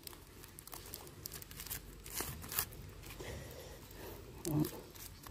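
Faint, scattered rustling and crinkling of a nylon mesh bag being gripped and twisted shut by hand.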